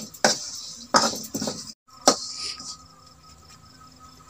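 A metal ladle scraping and clinking against a steel wok as fish are stirred in frying oil, a few sharp strokes in the first two seconds, followed by a faint steady hum.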